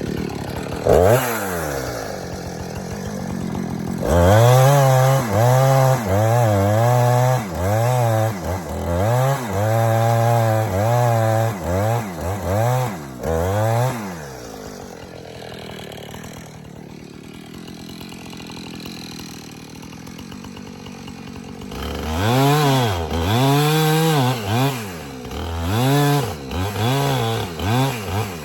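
Gas chainsaw working a cut in an elm tree, revving up and down in repeated bursts about once a second. It drops to a steady idle in the middle before revving again near the end.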